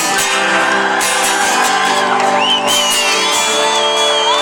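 Live acoustic guitar music with sustained chords. From about halfway through, a single high wavering cry rises over it.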